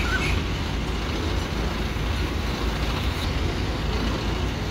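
Diesel engine of an Ace hydra crane running steadily as it holds and swings a suspended backhoe loader, heard mostly as a low rumble.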